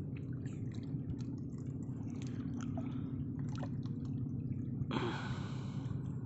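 Water dripping and slapping against a small wooden fishing boat over a steady low hum, with scattered light ticks and a brief rush of noise about five seconds in.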